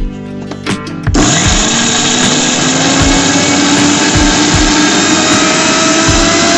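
Electric mixer grinder switched on about a second in: the motor spins up with a slowly rising whine and then runs steadily at full speed, its blades whirring in the stainless steel jar.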